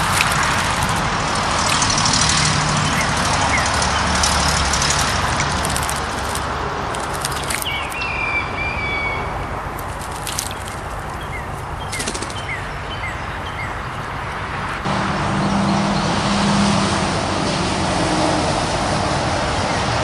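Steady road-traffic noise from passing cars, with a car's engine hum growing louder in the last few seconds. A few short, faint bird chirps come through around the middle.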